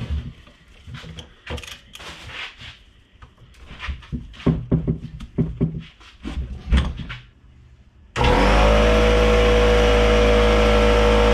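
Clicks and knocks of tools and a heavy pump being handled on a wooden bench, then about eight seconds in an impact wrench starts suddenly and runs loudly at a steady pitch, spinning off the big 1-1/16-inch nut on a power steering pump.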